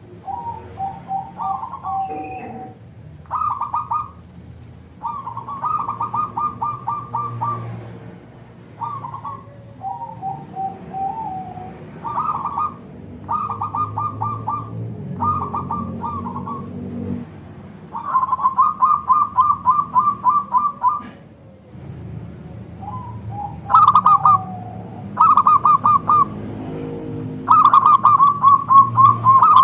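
Zebra dove (perkutut) singing: a run of phrases of rapid staccato coos, some ending in a longer falling note, with the loudest phrases near the end. A low steady rumble lies underneath.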